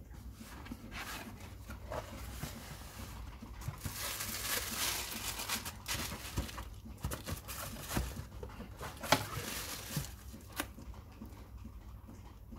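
Cardboard shoebox being opened and white tissue paper rustling as a pair of slip-on sneakers is unwrapped and lifted out. The rustling is heaviest midway, and there are a couple of sharp clicks in the second half.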